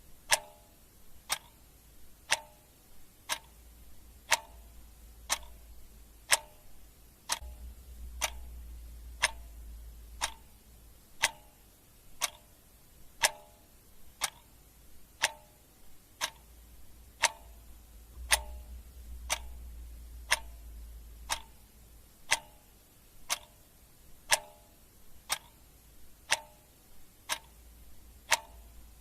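Clock ticking steadily, one sharp tick about every second. A faint deep rumble swells up twice underneath.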